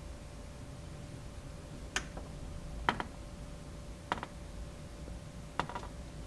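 Four short sharp clicks, a second or so apart, over a steady low rumble of wind and a faint steady hum.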